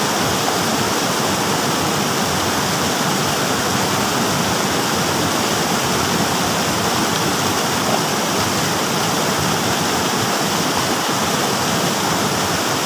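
A rocky stream rushing over stones, with white water churning at a small cascade, in a steady rush.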